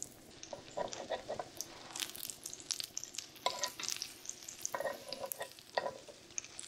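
Breaded yellow jack fillets sizzling in hot olive oil in a cast-iron skillet, with sharp clicks and a few brief metallic clanks as metal tongs turn the fillets against the pan.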